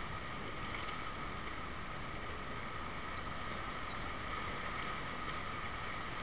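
Steady ambient noise of an indoor swimming pool hall, with a constant hum at two pitches and no distinct splashes standing out.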